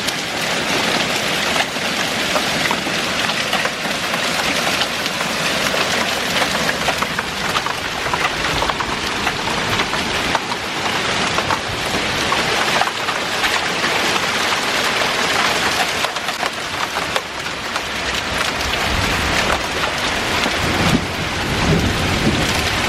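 Steady heavy rain: a dense, loud hiss with many small drop ticks.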